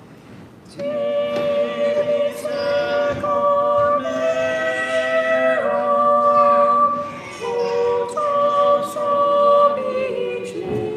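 Church choir singing unaccompanied, several voices together on long held notes that change every second or two; the singing comes in about a second in after a short pause.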